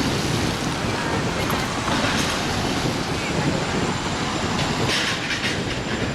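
A fire engine's diesel engine rumbling heavily as the rig pulls out, with two short hissing bursts, about two seconds in and again near five seconds.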